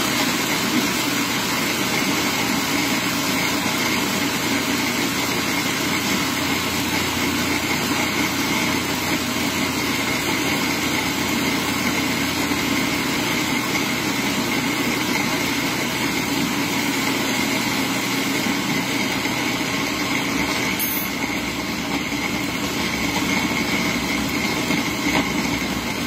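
Electric food processor switched on and running steadily with a whirring motor hum, chopping pitted dates and raw walnuts into a pie crust. The mix is not yet sticky and is being processed until it comes together in a ball.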